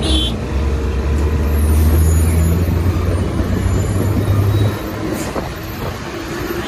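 Heavy traffic at close range: the low engine drone of a bus and container trucks, with wind buffeting a helmet-mounted phone. The deep drone falls away about four and a half seconds in.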